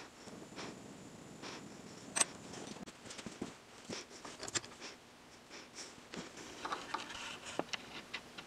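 Small steel hand tools clicking and tapping against a freshly brazed carbide insert held in a vise, the loudest a sharp click about two seconds in. A faint hiss of the small torch stops about three seconds in.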